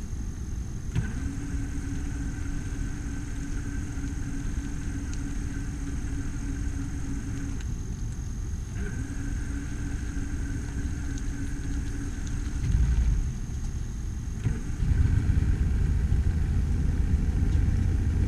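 A motor running steadily with a low rumble and a higher, steady whine that cuts out for a moment about halfway and then stops a few seconds later. The rumble grows louder near the end.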